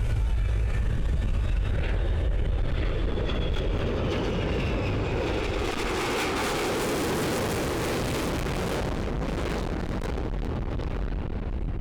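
Jet roar from an F-35A's single Pratt & Whitney F135 turbofan as it flies past. A deep rumble at first gives way to a rushing roar that is fullest about six to eight seconds in, then eases off slightly.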